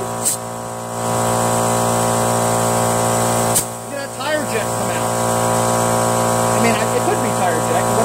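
Air compressor running with a steady hum while a tire inflator chuck fills a garden tractor's tire through its inner tube valve. Short, sharp hisses of air come from the chuck about a third of a second in and again about three and a half seconds in.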